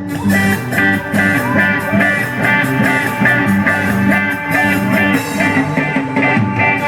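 Ska band music, an instrumental passage: guitar over a bass line, with short repeated chords on a steady beat.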